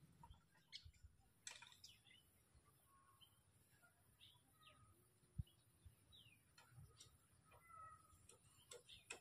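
Faint outdoor quiet with scattered short bird chirps and a few soft clicks, and one dull low thump about five seconds in.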